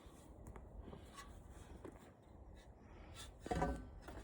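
Faint rubbing and scraping with a few light clicks as metal parts of a flat-screen TV are handled during disassembly, and one brief louder scrape near the end.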